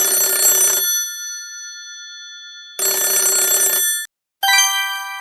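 Telephone bell ringing: two rings about a second long each, the first leaving a fading tone. Near the end comes a short chime of a different set of tones.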